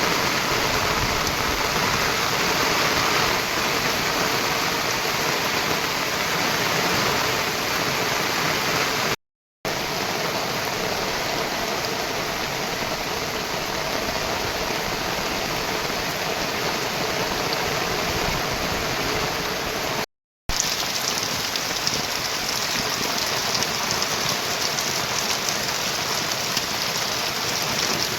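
Heavy monsoon rain falling steadily, a dense even hiss, broken twice by a moment of dead silence and a little brighter and hissier after the second break.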